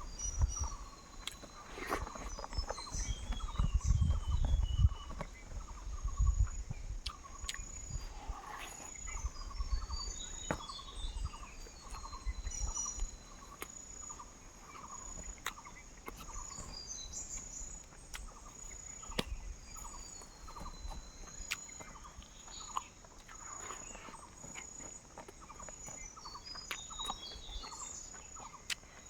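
Jungle ambience: insects chirping steadily with a high, even tone, a short call repeating about twice a second, and birds calling in short falling runs of chirps. Low rumbling thumps in the first few seconds and scattered clicks.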